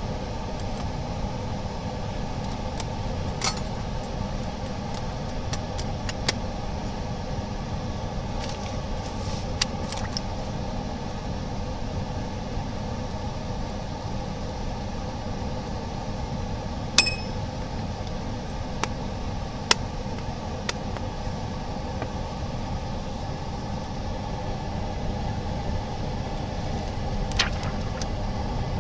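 Steady machine hum, with scattered small clicks of parts being handled and one sharp, ringing clink about seventeen seconds in.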